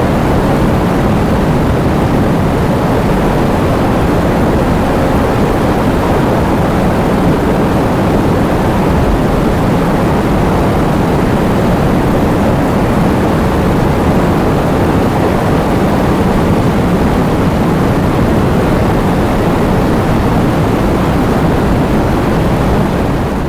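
Heavy rain falling in wind: a steady, dense noise with most of its weight low down, without separate drops or gusts standing out, starting to fade out near the end.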